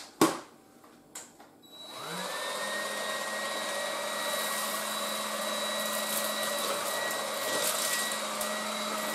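A click, then about two seconds in the Tefal Dual Force TY6751 cordless stick vacuum's motor spins up with a rising whine. It settles into a steady run with a high whine on its lower power setting while the nozzle picks up spilled breadcrumbs.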